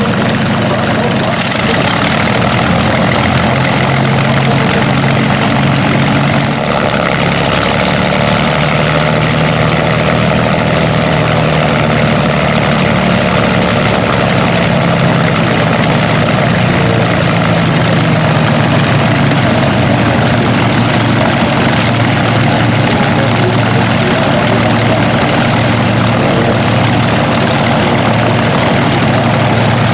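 Rolls-Royce Merlin liquid-cooled V12 aero engine running at a steady idle on a trailer-mounted test stand, its propeller turning. The note deepens slightly about six and a half seconds in and shifts a little in pitch after that.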